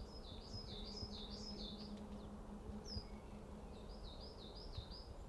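A small songbird singing faintly: a quick run of high notes that rise and fall, a single note, then a second, shorter run of the same notes.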